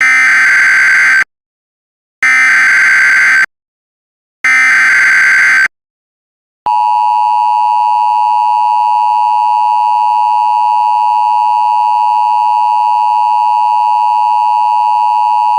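Emergency Alert System signal: three identical bursts of SAME header data chirps, each a little over a second long with a second's gap between them. About a second after the third burst, the steady two-tone EAS attention signal comes in and holds unbroken.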